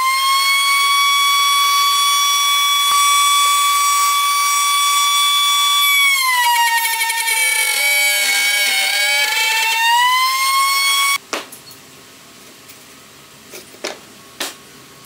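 Router spinning a straight bit in a router table, a loud steady high whine that sags in pitch for a few seconds as the bit cuts a finger slot through the board, then climbs back up. The whine cuts off suddenly about eleven seconds in, followed by a few light wooden clicks.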